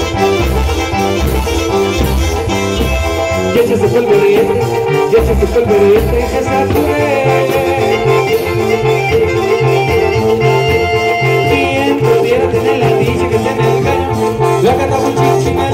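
Latin dance music with singing over a steady bass beat.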